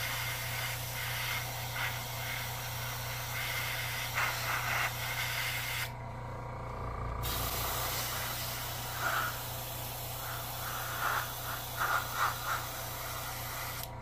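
Airbrush spraying paint with a steady hiss. The spray stops for about a second around six seconds in, starts again, and cuts off near the end. A low steady hum runs underneath.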